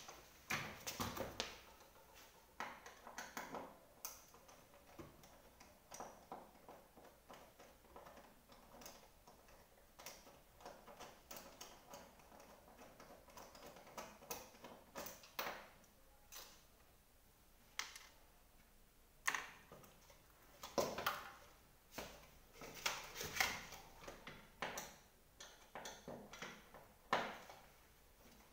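Irregular clicks, taps and short scrapes of hands and tools working on the underside of an upturned office chair's seat, coming in clusters, with the loudest a little over two-thirds of the way in.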